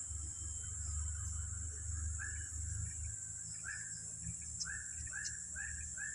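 Steady high-pitched drone of insects, with a run of short animal calls in the second half that come closer together toward the end, over a low rumble.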